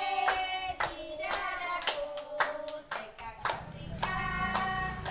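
Young children and a teacher singing a song together while clapping their hands in time, about two claps a second.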